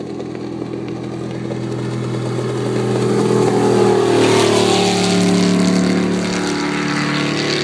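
Campion Chase 300 speedboat's engine at speed making a close pass, with the rush of its hull and spray on the water. It grows louder to a peak about four seconds in, then its note drops in pitch as it moves away.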